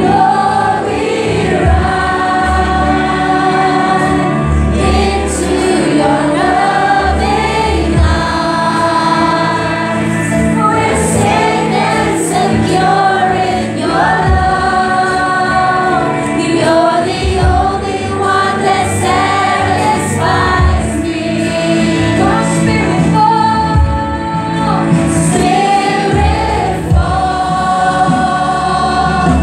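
Live church worship music: a group of singers holding long sung notes over instrumental accompaniment.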